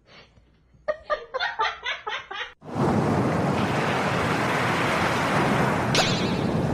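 Breaking sea waves and surf, a loud steady rushing noise that starts suddenly about two and a half seconds in, likely with wind on the microphone. Before it, a short run of rapid pitched pulses.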